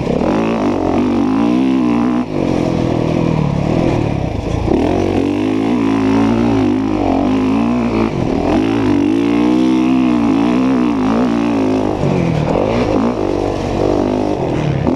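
Motocross dirt bike engine under hard riding, its pitch climbing and dropping again and again as the throttle is opened and rolled off through the turns and straights, heard from the rider's helmet camera.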